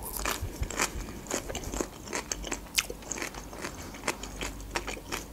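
Close-miked chewing of fresh cucumber sticks: an irregular run of crisp, wet crunches and mouth clicks.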